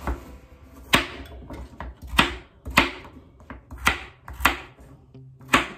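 Chef's knife chopping carrots into chunks on a cutting board: seven sharp knocks of the blade striking the board, spaced about half a second to a second apart.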